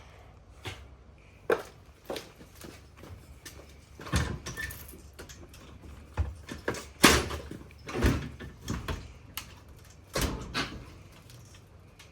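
Irregular knocks and clunks of heavy items being handled, loudest about seven and eight seconds in.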